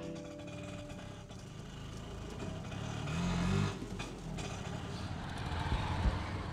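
Street traffic with small vehicle engines running. About three seconds in, one engine revs up, rising in pitch, then drops back.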